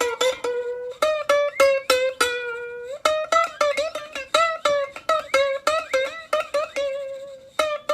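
Music: a plucked-string tune of quick picked notes.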